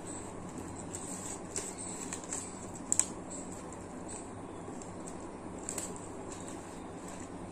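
Soft rustling and scattered light clicks from a small decorative Ganesh idol being turned in the hands and wiped with a cloth, with one sharper click about three seconds in, over a steady low hiss.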